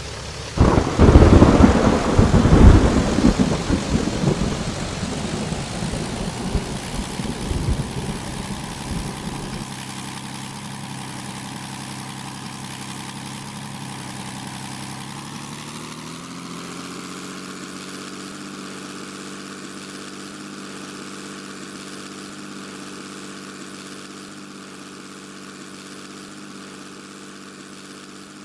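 Aircraft engine noise: a sudden heavy rumble that fades over about nine seconds, then a steady engine hum whose pitch rises around halfway through and holds.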